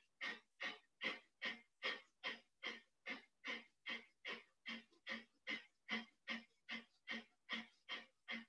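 Breath of fire: quick, forceful exhalations through the nose in a steady rhythm of about two and a half a second.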